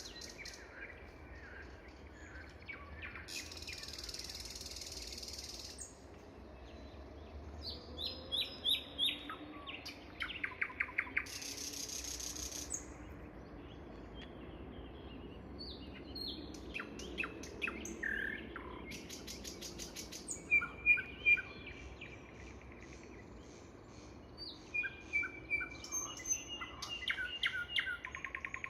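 Nightingale singing in separate phrases of rapid repeated clicking notes, clear whistles and harsh rasping trills, with short pauses between them.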